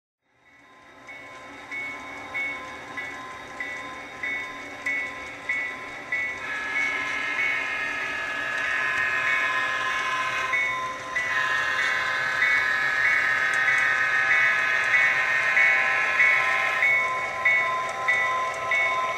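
The SoundTraxx Tsunami sound decoder in an HO scale GP7 model locomotive plays diesel sounds through the model's small onboard speaker. The locomotive bell rings steadily, about two strokes a second. The horn sounds a long blast, breaks off briefly near the middle, then sounds a second long blast, all over a steady engine sound.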